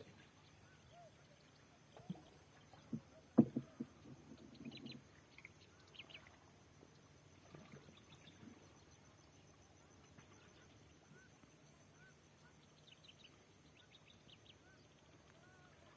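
Faint scattered bird calls, short high chirps and small up-and-down calls, with a few knocks about two to five seconds in, the loudest about three and a half seconds in.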